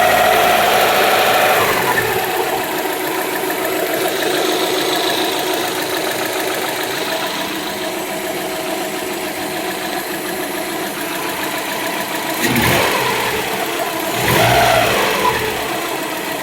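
Car engine idling with a tick that the owner thinks is lifter tick. The revs come down over the first couple of seconds, and the throttle is blipped twice near the end.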